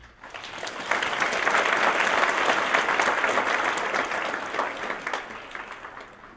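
Theatre audience applauding at the end of a ballet number. The clapping swells within the first second, holds steady, then thins out toward the end.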